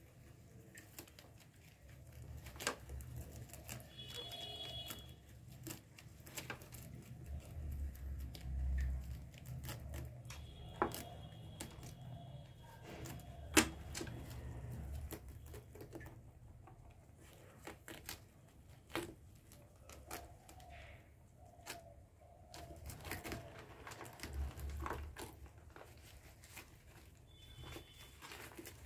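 Rabbits nibbling and shuffling through leafy green stems in a plastic tub: scattered small clicks, crunches and rustles of leaves and claws on plastic. A few brief high, thin tones come through three times.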